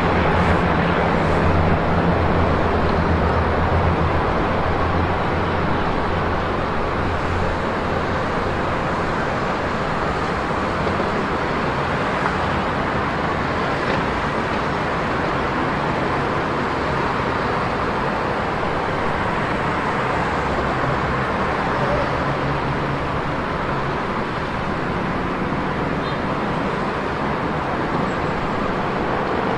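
Steady road traffic noise from motorcycles and cars at a road crossing, with a low engine hum that fades over the first few seconds.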